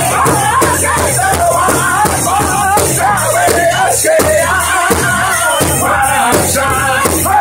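Powwow drum group: several men singing together in a high, wavering Northern Plains style over a large shared bass drum, beaten in unison with drumsticks in a steady pulse.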